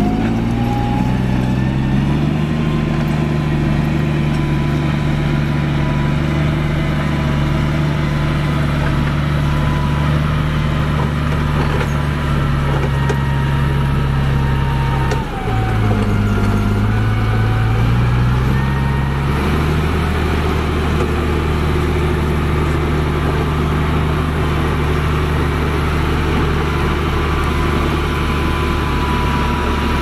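Motor grader's diesel engine running steadily under load as the blade grades loose dirt, with a thin high whine over the engine note. The engine pitch drops about halfway through and picks up again a few seconds later.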